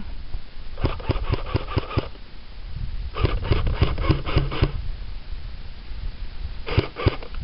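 Cybergun FAMAS electric airsoft gun firing three bursts of evenly spaced shots, about five or six a second: one about a second in, a longer one around three to four seconds in, and a short one of three shots near the end.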